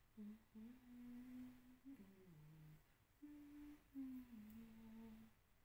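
A woman softly humming a slow tune with her lips closed: long held notes that step up and down in pitch, dipping lower a little after two seconds in and pausing briefly about three seconds in.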